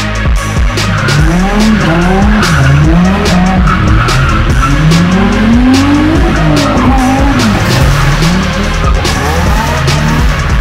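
Nissan 350Z V6 engine revving up and down again and again while the car drifts, with tyre squeal. Background music with a steady beat plays underneath.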